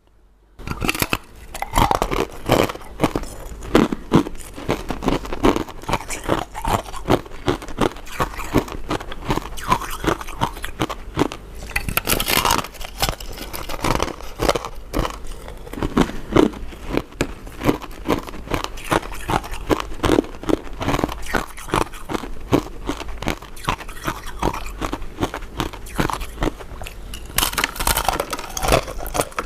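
A person biting and chewing powder-coated mint sweets close to the microphone: a dense, uneven run of sharp bites and wet chewing clicks, starting after a brief silence.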